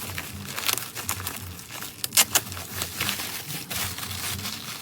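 Plastic packaging crinkling and rustling as a pack is handled and opened, with irregular sharp crackles; the loudest pair comes about two seconds in.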